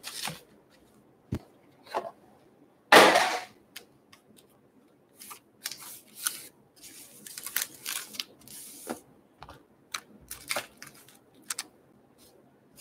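Foil-wrapped baseball card packs crinkling and knocking on a wooden table as they are handled and stacked: a string of short, irregular crinkles and light taps, the loudest about three seconds in.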